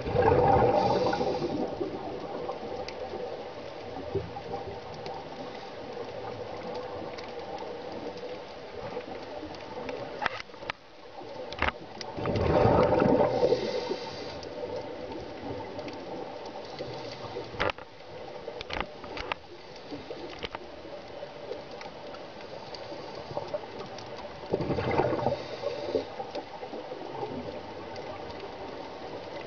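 Heard underwater: a scuba diver's exhaled bubbles gurgling out of the regulator three times, about twelve seconds apart. Between breaths there is a steady underwater hiss with scattered sharp clicks.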